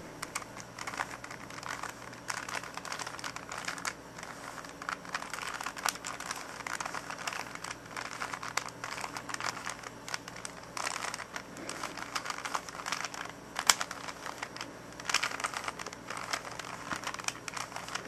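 A plastic 3x3x3 Rubik's cube being turned by hand through a move sequence: a dense, irregular run of small plastic clicks and clacks as the layers rotate, with a sharper click now and then.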